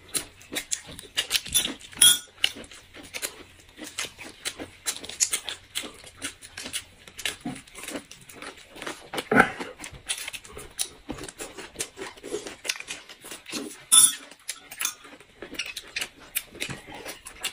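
Close-miked eating sounds: wet chewing, lip-smacking and slurping, with now and then a light clink of tableware.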